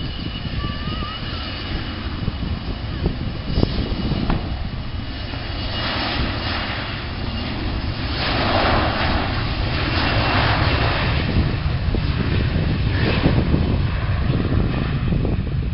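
Jet engine noise from a Bombardier CRJ regional jet's rear-mounted turbofans as it moves along the runway: a steady rumble with a thin high whine, growing louder about eight seconds in.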